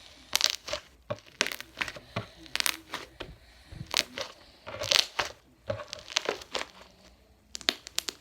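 Slime being squeezed and stretched by hand, giving off irregular sharp pops and crackles as trapped air bubbles burst, some in quick clusters.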